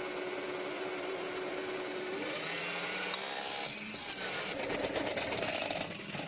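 Electric drill running with its bit cutting into steel: a steady motor hum under a grinding cutting noise that grows heavier about four seconds in and eases off near the end.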